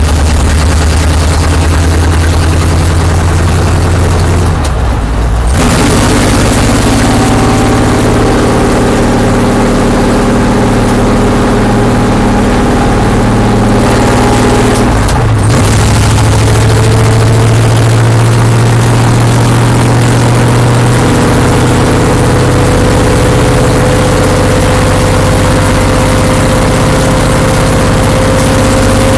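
Stock car's V8 engine running hard, heard from inside the cockpit. The engine note breaks briefly twice, about five and fifteen seconds in, as the car shifts up, then climbs slowly as the car gathers speed.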